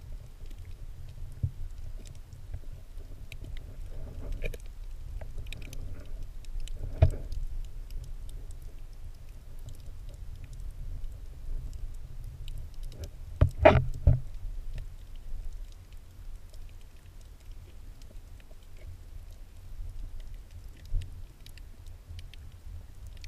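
Underwater sound through a submerged camera: a steady low rumble of moving water with faint scattered clicks and crackles. There is a single knock about seven seconds in and a short cluster of louder knocks about halfway through.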